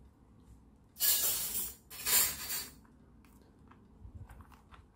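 Small 3D-printed plastic parts being fitted by hand, with a propeller being pushed onto its steel shaft: two short scraping rasps about a second and two seconds in, then a few light clicks.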